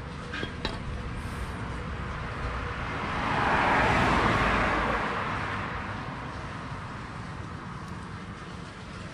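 A road vehicle passes by, its rushing noise swelling to a peak about four seconds in and fading away within a couple of seconds, over a steady low traffic rumble. A few light clicks come near the start.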